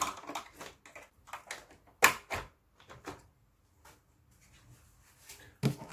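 Small clicks and knocks of a screwdriver working on the plastic housing and clips of a Daikin wall-mounted aircon indoor unit, with one sharp knock about two seconds in, then a quieter stretch.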